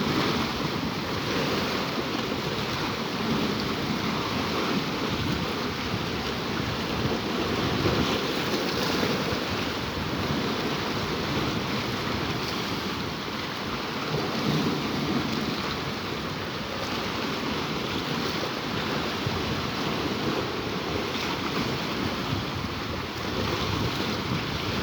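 Sea waves washing over coastal rocks: a continuous wash of surf that swells and eases gently.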